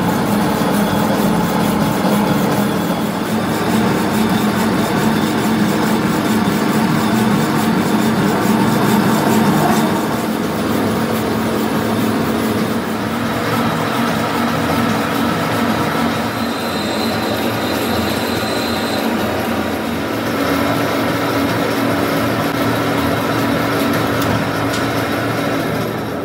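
Metalworking machinery running steadily, loud and continuous, with a held low hum and a thin high whine that comes in for a while in the middle.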